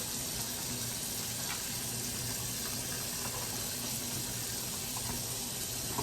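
Kitchen tap running steadily into the sink as dishes are washed and rinsed, with a faint clink or two.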